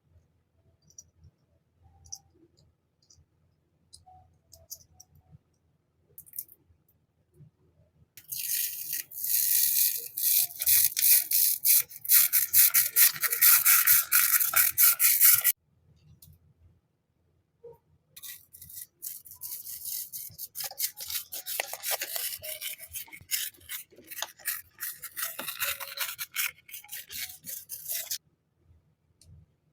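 Rapid, close rubbing strokes against a surface in two long stretches, the first about eight seconds in and the second after a short pause, with a few light taps and clicks before them.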